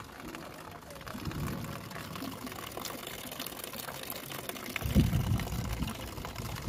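Thin stream of water from a wall tap running into a plastic bucket. Low rumbles come about a second in and, louder, around five seconds in.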